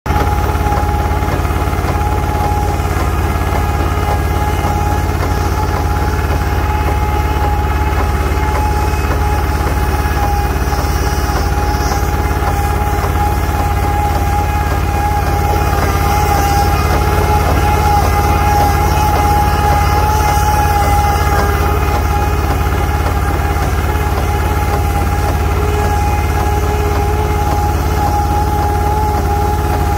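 Engine-driven stucco spraying equipment running steadily, with a constant whine held over a low engine drone as plaster is pumped to the spray gun.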